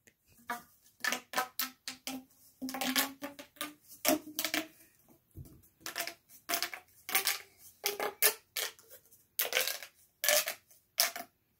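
A plastic pop tube being stretched and squashed, its ribbed sections snapping open and shut in irregular runs of clicks and pops with a hollow ring.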